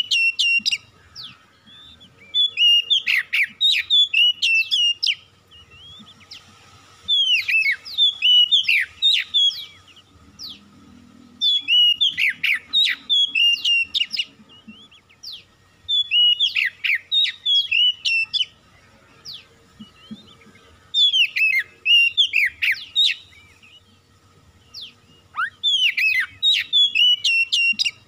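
Oriental magpie-robin singing: loud phrases of rich whistles and quick up-and-down sweeps, each two to three seconds long, repeated every four to five seconds with short pauses between.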